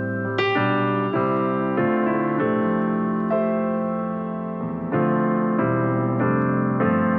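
Background piano music: slow, gentle electric piano chords, a new chord struck every second or so.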